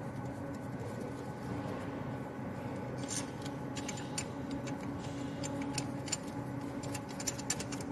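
Light metallic clicks and clinks of a steel camshaft locking tool being fitted and shifted onto the camshafts, starting about three seconds in and coming several close together near the end, over a steady low hum.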